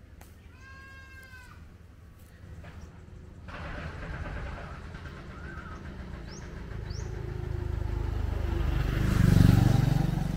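A short animal call about half a second in, then a motor vehicle coming along the road, growing steadily louder until it passes closest just before the end.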